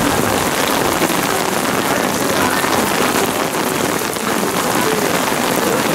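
Steady rain falling on umbrellas and wet pavement.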